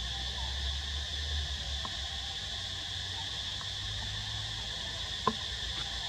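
Steady high-pitched drone of insects calling in the undergrowth, with a low rumble underneath. One sharp short click about five seconds in.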